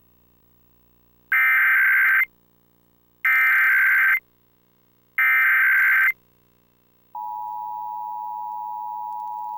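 Emergency Alert System required monthly test: three bursts of SAME header data tones, each a little under a second long and about two seconds apart. About seven seconds in, the steady two-tone attention signal starts and holds.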